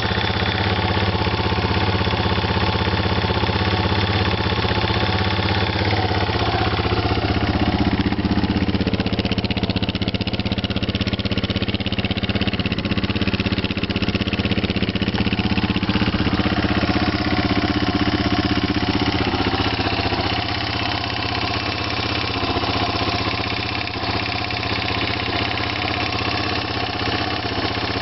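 Yamaha TT600 single-cylinder four-stroke motorcycle engine running steadily at idle, with the noise its owner calls a bad sound; the note shifts and drops slightly in level about two-thirds of the way through.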